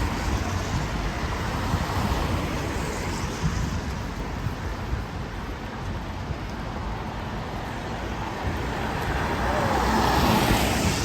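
Rainy city street ambience: a steady hiss of rain and traffic on a wet road, with a vehicle passing and swelling louder near the end.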